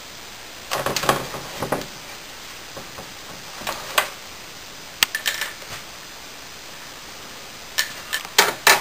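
Irregular clusters of sharp taps and clatters against a clear plastic tub as a corn snake strikes at and coils around a live mouse. The bursts come about a second in, around four and five seconds, and loudest near the end.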